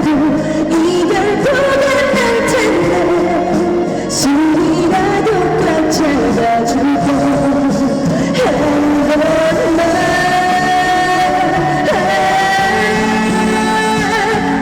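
Trot music played loudly over a stage sound system: a melody line with long, gliding notes over steady backing accompaniment.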